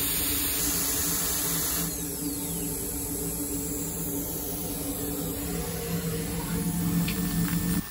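CNC milling machine with a vacuum table running steadily while engraving a titanium part, with a low, even hum. About two seconds in the high hiss drops away and a faint falling whine follows as the spindle is raised clear of the part.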